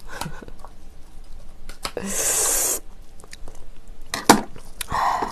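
Close-miked eating sounds: scallop shells being handled and pulled apart with scattered clicks, a short loud hiss about two seconds in, then chewing with a sharp click near the end.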